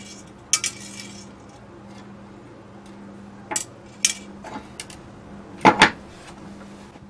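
Small metal parts and tools clinking and knocking on a wooden workbench as they are handled, in a few scattered taps with a louder double knock near the end.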